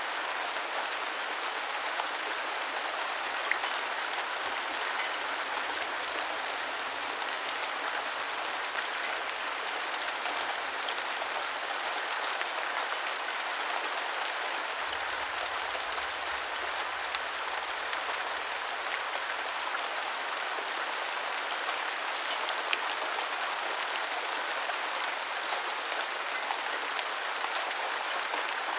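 Steady rain falling, an even constant hiss with an occasional sharper drop tick.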